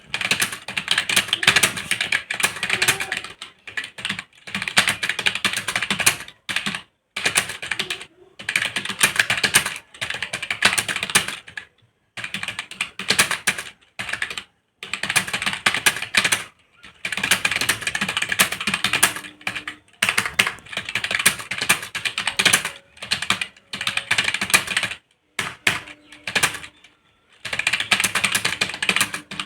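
Fast typing on a computer keyboard, about 60 words a minute: a dense clatter of keystrokes in runs of a few seconds, broken by brief pauses.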